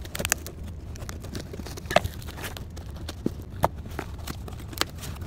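Scissors snipping and picking at packing tape on a cardboard shipping box: scattered, irregular clicks and ticks of the blades and the box being handled, the sharpest about two seconds in.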